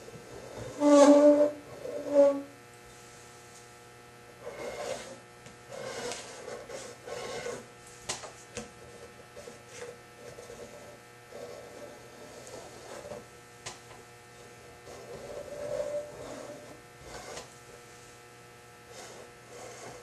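Divider point scratching an arc into galvanized sheet steel in short, irregular strokes, over a steady electrical mains hum. Two short, loud pitched squeaks come about one and two seconds in.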